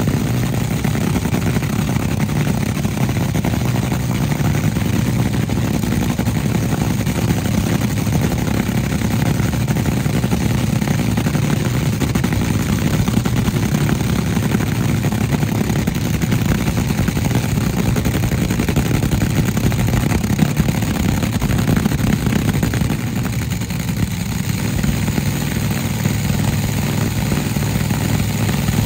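Top Fuel dragster's supercharged nitromethane V8 idling loudly and steadily on the starting line before the burnout, its note shifting slightly near the end.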